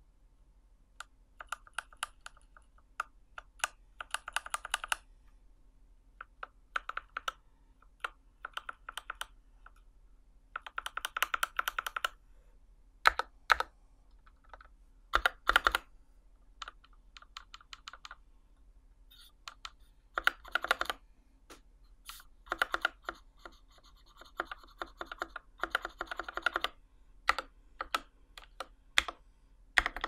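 Typing on a Verne custom mechanical keyboard fitted with lubed Durock Alpaca linear switches and GMK keycaps: quick runs of keystrokes in bursts with short pauses between, and a few louder, deeper key strikes around the middle.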